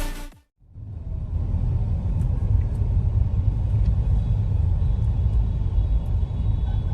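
Music fading out in the first half-second, then a steady low rumble of a motor vehicle.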